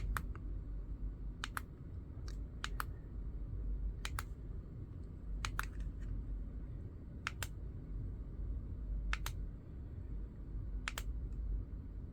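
Plastic snooze button on a digital alarm clock pressed about eight times, each press a quick double click of press and release, roughly every one and a half seconds. Each press steps the clock's night light to the next colour.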